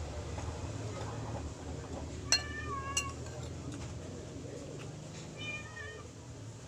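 A cat meowing three times in short, high calls over a steady low hum.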